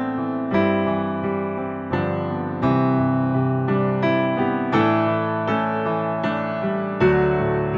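Slow, gentle keyboard music: sustained piano-like chords struck about once a second, each fading before the next.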